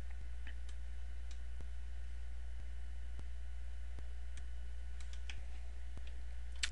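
Faint, scattered clicks of a computer mouse, irregular and a second or so apart, over a steady low electrical hum.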